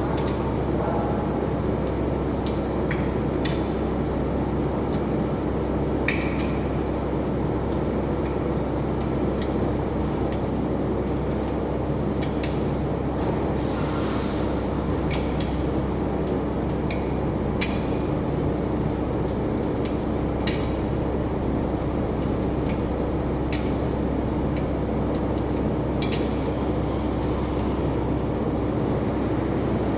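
Scattered sharp metal clinks and taps of hand tools on engine parts, a few seconds apart, over a steady loud machine hum with one held tone.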